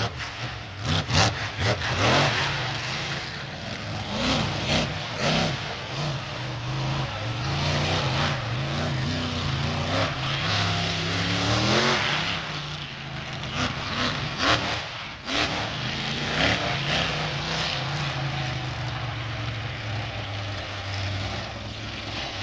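Monster truck engine running hard and revving, its pitch rising and falling, with a long climb about eleven seconds in. Several sharp bangs come in the first two seconds and again around fifteen seconds in.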